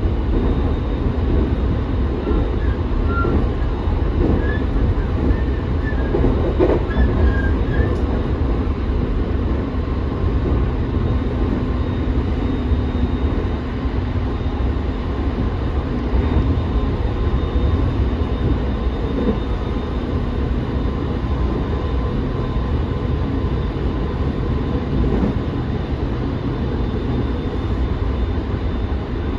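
Running noise heard inside the passenger car of a JR East E217 series electric commuter train at steady speed: a continuous rumble of wheels on rail with a faint steady high tone and occasional rail clicks. A few brief high squeaks come a few seconds in.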